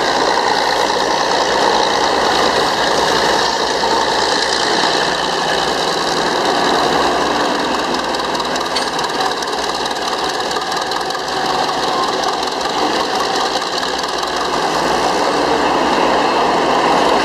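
Northwest Model 6 cable shovel's Murphy diesel engine running steadily under load, with the clatter of the shovel's machinery as it digs and swings its dipper.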